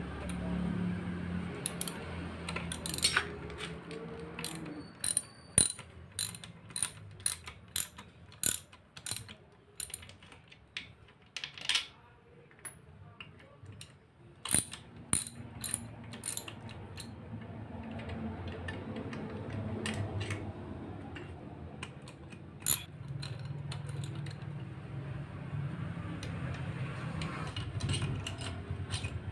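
Socket ratchet wrench clicking in short runs, about two clicks a second, as the bolts on a Suzuki Multicab manual transmission case are loosened during teardown, with pauses and single clicks between runs.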